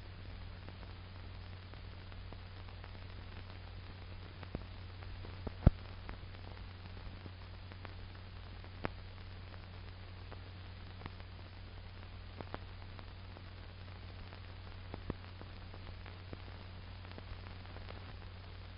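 Faint hiss and steady low hum of an old film soundtrack between narration, with scattered clicks and pops; one sharper pop comes about six seconds in.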